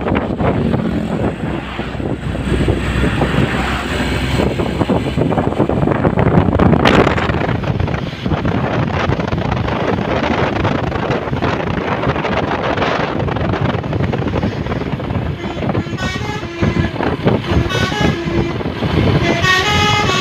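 Tour bus's Basuri telolet multi-tone horn playing a tune of short stepping notes in the last few seconds, over the steady noise of the bus engine and road traffic.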